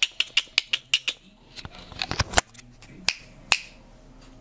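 A run of sharp clicks made for the baby to hear: about six quick clicks in the first second, a tight cluster about two seconds in, then two single clicks.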